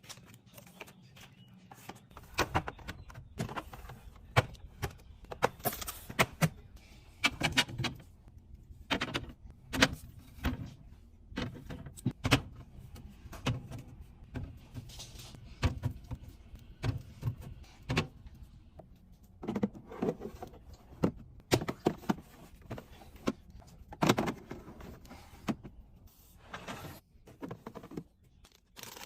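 Irregular clacks, knocks and rattles of containers and packaging being handled and set down while a fridge is restocked. A steady low hum runs under them from about two seconds in.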